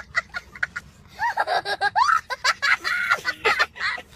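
Laughter: short, quick bursts at first, then fuller giggling with the pitch sliding up and down from about a second in.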